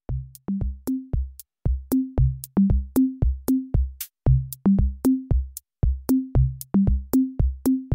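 Electronic background music: a beat of deep, pitched drum hits, about three a second, stepping among a few low notes.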